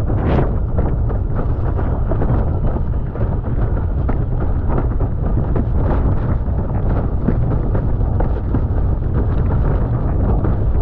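Strong wind buffeting the microphone in a heavy, steady rumble, over the rush of water and spray with frequent short slaps as a windsurf board planes at speed through chop in about 37 knots of wind.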